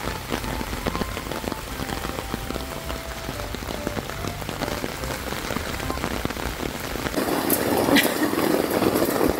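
Heavy rain pattering on a camping tent, a dense patter of drops that grows louder about seven seconds in.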